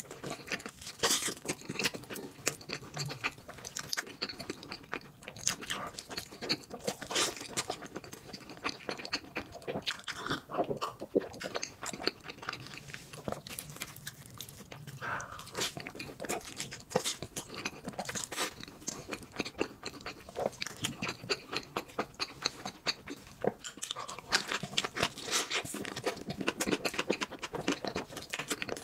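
A person eating soft crepes filled with banana and coated in chocolate and green tea spread: repeated bites and chewing, with many quick sticky, wet mouth clicks.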